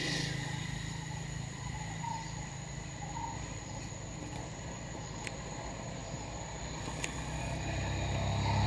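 Insect chorus: steady shrill cricket-like tones, over a low hum that swells louder near the end.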